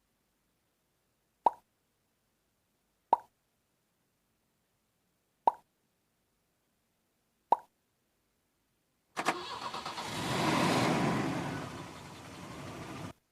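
Four short plops, one every couple of seconds, then about four seconds of an engine-starting sound effect that swells, dies down and cuts off suddenly, as played back by an electronic sound toy.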